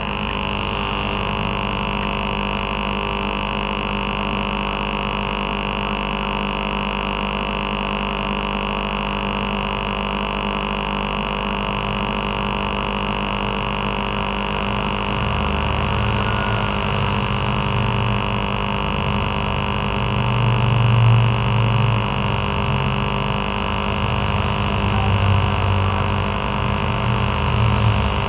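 Aquarium aerator air pump running with a steady electric hum. About halfway through, an uneven low rumble swells and fades over it a few times.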